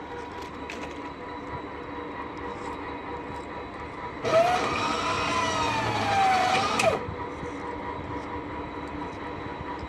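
Electric point machine driving the railway switch blades across: a motor whine that rises and then falls in pitch for nearly three seconds, starting about four seconds in and stopping abruptly.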